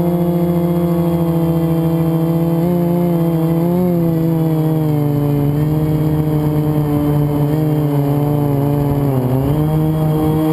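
FPV racing quadcopter's brushless motors whining in flight, pitch shifting with the throttle. The pitch drops sharply about nine seconds in, then climbs back.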